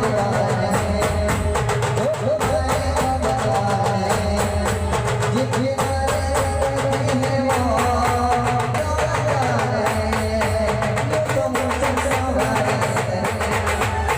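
Indian procession band playing loudly: a wavering melody line over fast, heavy drumming.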